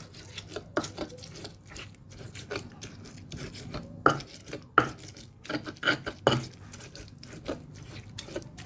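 A utensil scraping and knocking against a stone mortar while stirring and pressing corn kernels with flour into a fritter batter. The clicks and scrapes come irregularly, with a few sharper knocks near the middle.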